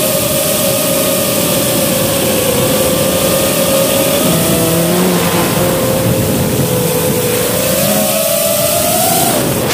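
5-inch FPV quadcopter's brushless motors and propellers whining, picked up by the onboard camera, holding a fairly steady pitch and rising near the end as the throttle comes up, over a loud steady hiss.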